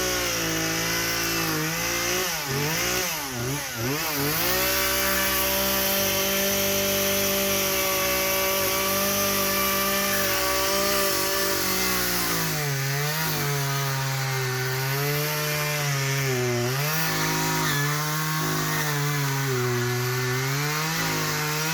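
Husqvarna 120 Mark II two-stroke chainsaw cutting wood. The revs rise and fall over the first few seconds, hold steady and high, then from about halfway run lower and wavering as the chain works in the cut.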